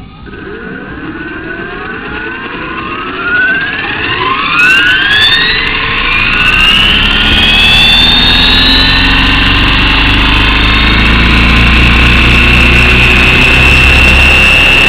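Align T-Rex 550 electric helicopter spooling up on the ground: the brushless motor and gear whine rises in pitch over about nine seconds, then holds steady at full head speed. A low rumble of rotor wash builds beneath it.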